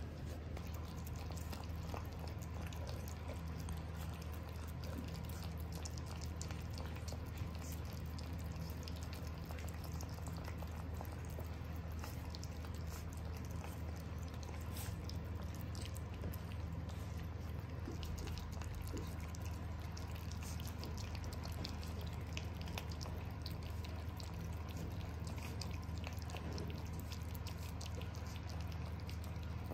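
Shiba Inu puppies lapping and licking soft, wet weaning food from a plate: many small, irregular wet clicks and smacks. A steady low hum runs underneath.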